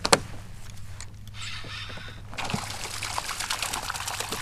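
A hooked fish thrashing and splashing at the water's surface beside a kayak, a dense spatter of splashes from about halfway through. A single sharp knock right at the start.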